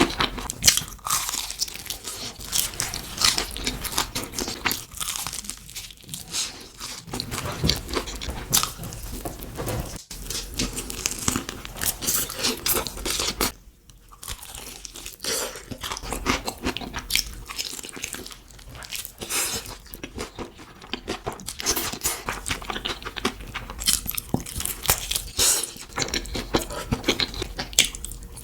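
Close-miked eating: crisp, crunchy bites and chewing in a dense run of crunches, with a brief pause about 14 s in.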